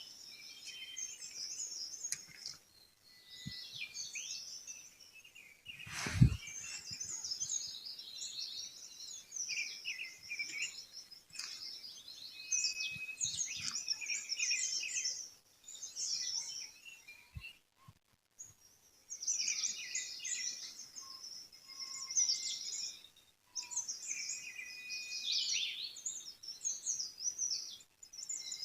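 Many small songbirds chirping and trilling in a dense, overlapping chorus. A single sharp thump about six seconds in is the loudest sound, and the birdsong cuts out briefly a few times.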